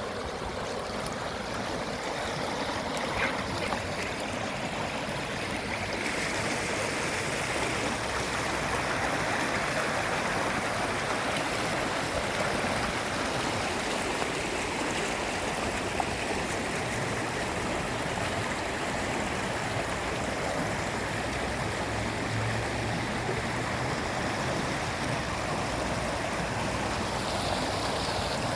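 Floodwater flowing steadily with a continuous rushing sound, a little louder from about six seconds in.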